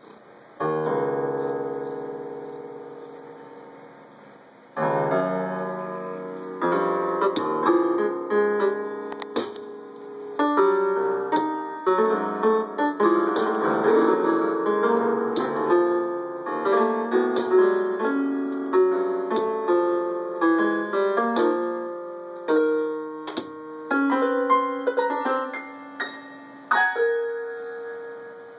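Electric keyboard in a piano voice, its keys pressed at random by a cat's paws and body as it walks and lies on them: a big cluster chord about a second in that dies away, another near five seconds, then a jumble of scattered notes and chords.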